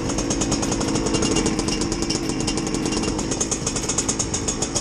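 Two-stroke dirt bike engine idling steadily, a fast even popping beat.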